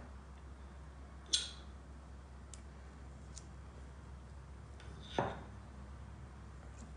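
Metal teaspoons clinking while scooping soft semolina cream. There are two sharp clinks, about a second in and about five seconds in, the second one fuller and louder, with a few faint ticks between.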